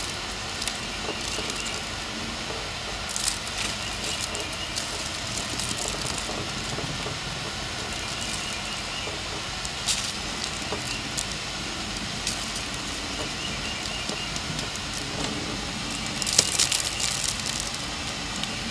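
Gloved hand sprinkling and pressing brown sugar onto a honey-glazed ham on a foil tray: a few short gritty rustles, the longest cluster near the end, over a steady background hum.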